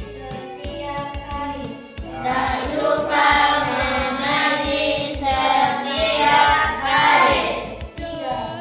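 A group of children chanting a recitation in unison, starting about two seconds in, over background music with a steady low beat.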